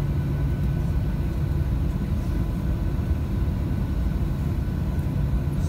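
Jet airliner cabin noise while taxiing after landing: a steady low rumble of the engines and air system with a constant low hum.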